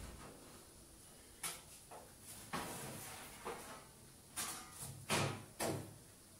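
A handful of short knocks and scrapes, spaced about a second apart, from objects being handled and set down on a kitchen counter.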